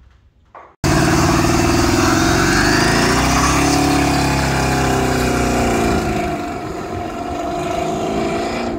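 Pickup truck doing a burnout: the engine running at high revs, its pitch rising and falling, as the rear tyres spin, starting suddenly about a second in and quieter over the last few seconds as the truck pulls away.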